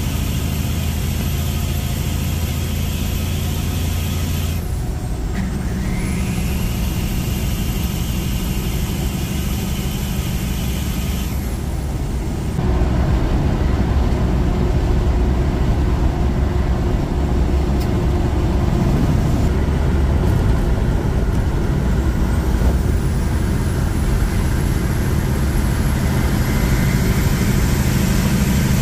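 Heavy diesel semi-truck engine running steadily at highway speed, with tyre and road noise, heard from inside the cab. The sound changes abruptly about five seconds in and again about twelve seconds in, a little louder after the second change.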